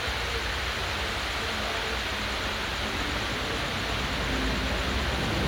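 Helicopter flying low nearby: a steady heavy rush of rotor and engine noise with a low rumble, growing a little louder near the end.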